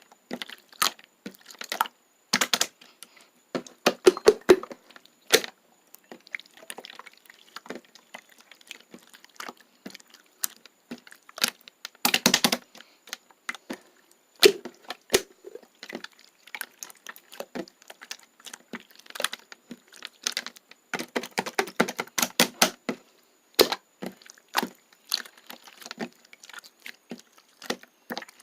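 Slime being squished, pressed and stretched by hand close to the microphone, making irregular wet clicks and pops, with denser bursts about four seconds in, around twelve seconds and again around twenty-one to twenty-three seconds.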